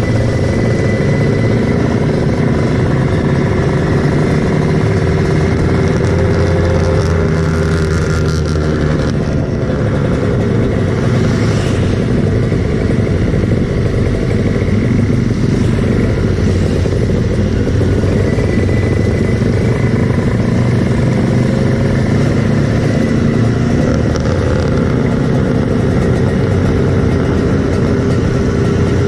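Kawasaki Ninja 150 two-stroke single-cylinder motorcycle engine running steadily under way, its pitch drifting gently up and down with the throttle. A short rush of hiss joins it about eight seconds in.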